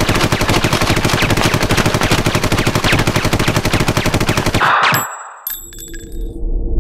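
Rapid machine-gun fire: one long unbroken burst of shots at a fast, even rate that stops sharply about four and a half seconds in. A short swell of noise and a few high ringing tones follow, then a low steady drone.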